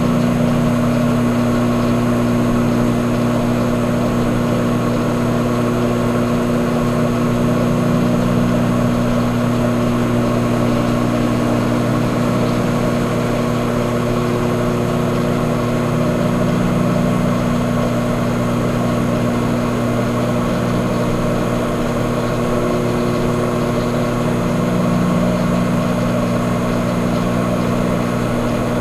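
An engine running at a steady speed, a continuous low drone that holds the same pitch.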